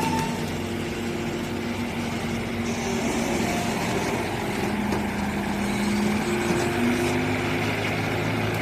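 Excavator with a hydraulically driven flail mower attachment running: a steady engine and hydraulic drone whose tones drift slightly in pitch.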